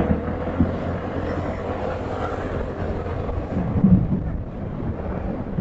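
Road traffic noise heard from a moving vehicle: a steady rumble and hiss, with a brief louder sound about four seconds in.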